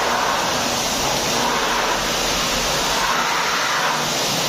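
Pressure-washer jet spraying water onto a stripped scooter's bare frame and engine: a steady, loud hiss.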